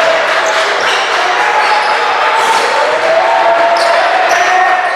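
Basketball game play: a ball bouncing on the court amid voices.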